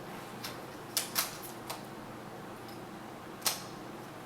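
Plastic snap clips of an MSI GL62 laptop's screen bezel clicking as they are pressed into place: a few sharp, separate clicks.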